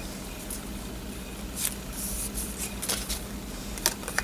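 Paper being handled on a desk: a few short rustles and scrapes of paper and sticker backing, in the middle and near the end.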